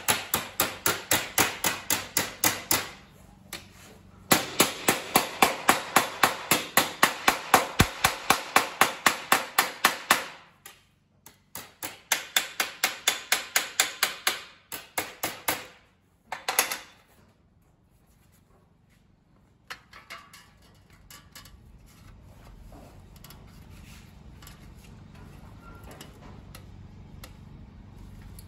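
Hand hammer rapidly striking sheet steel clamped in a bench vise, shaping a rust-repair patch panel, about three to four sharp metallic blows a second in runs with brief pauses. The hammering stops after about 17 seconds, leaving only faint handling of the metal and template.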